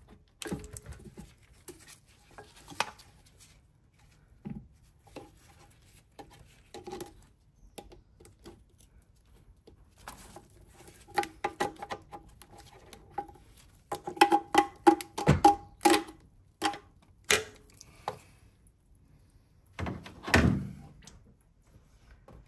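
Hand tools and metal parts clicking and knocking while the coolant flange is worked free from under the intake manifold of a 1.4 engine. The knocks come in scattered single strikes, then a quick run of metallic clinks with a brief ring about halfway through, and a longer, louder handling sound near the end.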